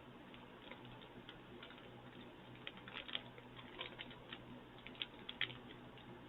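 Faint, irregular wet clicks of a mouth chewing Twizzlers filled twists, a soft chewy licorice-style candy, thickest in the middle of the stretch, over a low steady hum.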